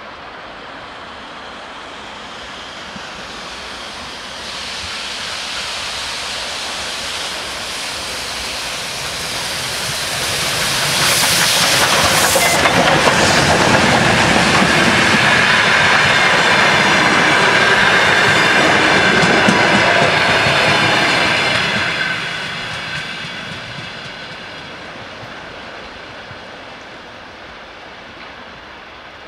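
Soviet L-class steam locomotive L-3055 approaching and passing at speed with a passenger train, the rolling train noise building for about ten seconds, loudest while the locomotive and carriages go by, then fading as the train draws away. A steady high tone runs through the loud passage as the carriages pass.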